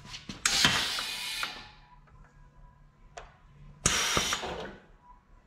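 Two bursts of rushing air from the truck's air-ride suspension valves, which let air through to the air bags. The first runs about a second and tails off; the second, about four seconds in, is shorter.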